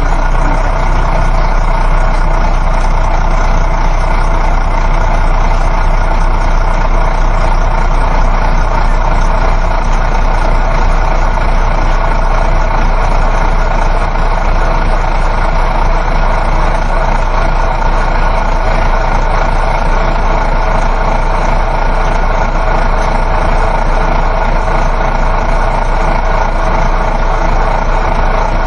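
Inside a moving coach bus: a steady engine hum blended with even road and tyre noise.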